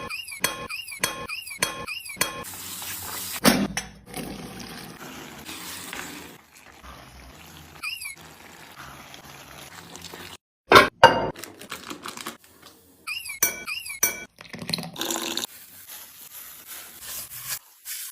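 Kitchen cooking sounds, mostly utensils clinking against dishes and some stirring, broken into short edited pieces. In places there are runs of high, repeated chirping squeaks.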